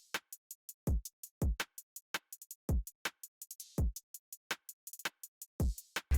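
Background electronic music: a drum-machine beat with deep kick drums that drop quickly in pitch and rapid hi-hat ticks between them.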